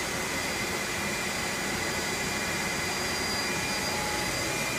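CNC machining center running: a continuous, even machine noise with steady high-pitched whines.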